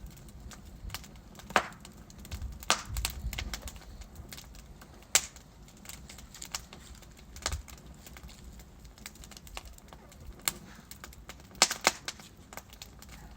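Wood fire crackling in a fireplace: burning logs giving off irregular sharp pops and snaps over a low, steady rumble of flame, with a few louder pops, two of them close together near the end.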